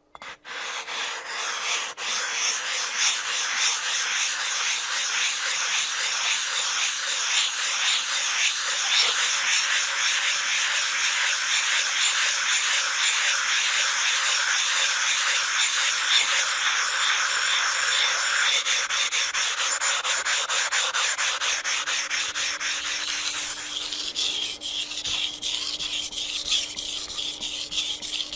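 Gritty back-and-forth rubbing on an 800-grit whetstone as the stone is prepped, in quick repeated strokes. About 23 seconds in it turns lighter and higher as a Japanese chef's knife begins to be stroked across the stone to set the edge.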